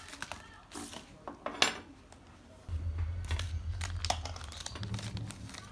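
Hands handling small hardware and packaging: scattered sharp clicks and crinkling. A low steady hum comes on suddenly about three seconds in.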